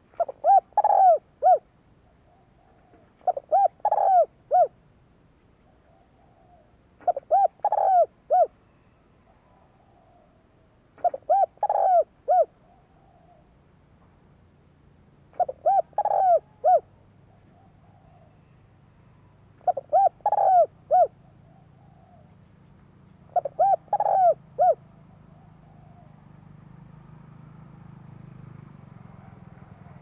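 Spotted dove cooing: seven short phrases of three or four deep coo notes, about one every four seconds, then a pause near the end. This is the decoy call used to lure wild doves. A faint low hum builds up in the background during the second half.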